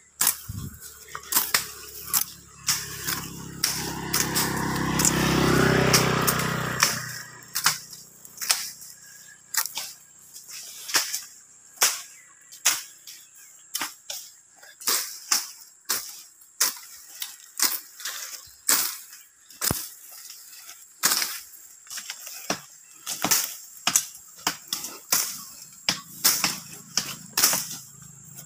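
A motor vehicle passes close by, swelling to its loudest about six seconds in and then dropping away, over a run of sharp, irregular clicks or taps, about one or two a second.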